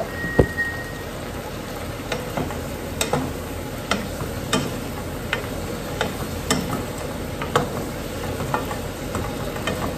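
Food sizzling as it fries in a pot, stirred with a wooden spoon that clicks against the pot about twice a second.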